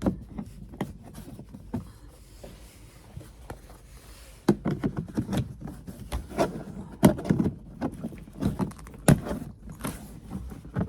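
Plastic cover plate by a vehicle's tail-light housing being worked and snapped back into place: a series of sharp clicks and knocks, sparse at first and coming thick and loud from about halfway through.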